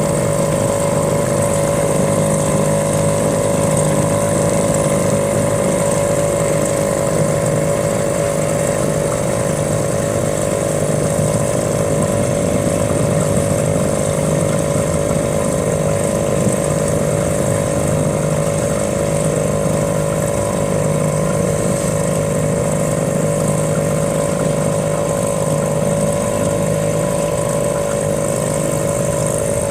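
A small boat motor running at a constant speed, a steady drone with a fixed high whine above it.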